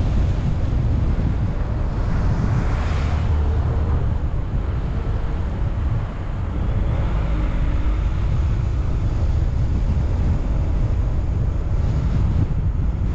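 Steady low rumble of wind and road noise from a car driving, with wind buffeting the microphone. A brief hissing swell comes about three seconds in.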